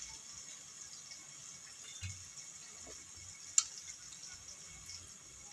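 Faint steady hiss with soft hand-handling sounds of slit brinjals being stuffed with masala paste, a soft thud about two seconds in, and one sharp click about three and a half seconds in.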